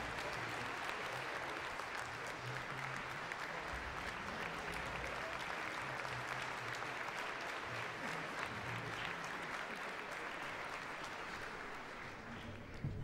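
Theatre audience applauding steadily, a dense patter of many hands that dies away near the end, welcoming the conductor as he enters the orchestra pit.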